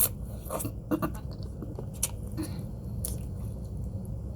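Close-up eating sounds of a person chewing a mouthful of pho, with a few sharp mouth clicks and smacks about a second apart, over a low steady hum.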